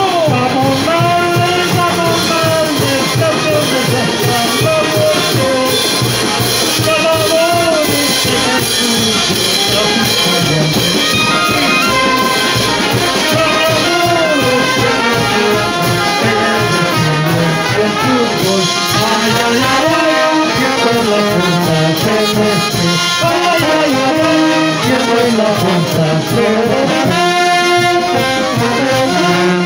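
Brass band music: trumpets and trombones playing a melody, loud and unbroken.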